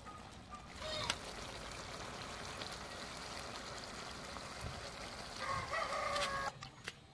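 A rooster crowing once for about a second near the end, the loudest sound here, over a steady hiss of sauce simmering in a wok that cuts off suddenly just after the crow.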